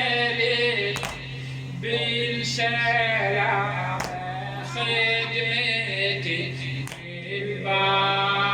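A man singing a mournful Muharram latmiya chant in long, held, wavering notes, over a steady low hum. Sharp strikes cut in about every second and a half.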